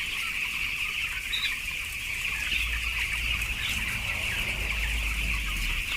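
A flock of young broiler chicks, about two weeks old, peeping together in a steady, continuous chorus. A low rumble sits underneath from about halfway through.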